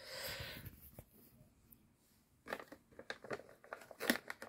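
Maine Coon cat eating a treat: a run of small, quick chewing clicks in the second half, after a brief soft rustle near the start.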